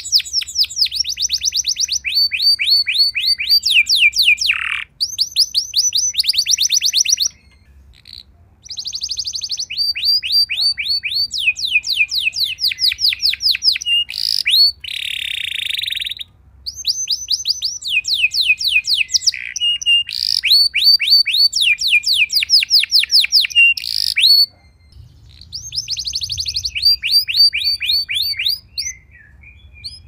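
Domestic canary singing: long phrases of rapidly repeated sweeping notes and fast trills, with two short pauses.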